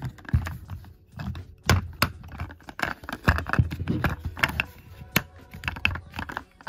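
Hard plastic parts of a G.I. Joe Cobra Stinger toy jeep clicking and tapping as they are handled and pressed together. An irregular run of sharp clicks, with a few louder snaps.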